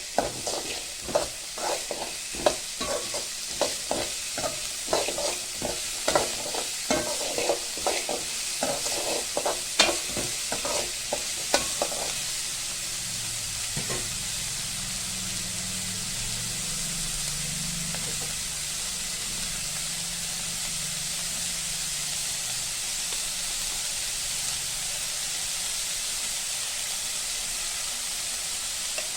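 Food sizzling in hot oil in a pan. For about the first twelve seconds a utensil stirs and knocks against the pan two or three times a second; after that the sizzling goes on steadily by itself.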